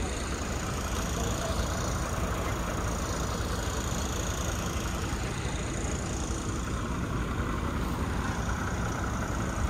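Heavy truck diesel engine idling steadily, a continuous low hum with no change in speed.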